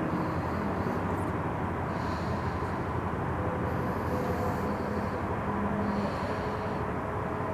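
Distant city street traffic: a steady hum of cars passing along the road below, with tyre hiss rising and fading now and then.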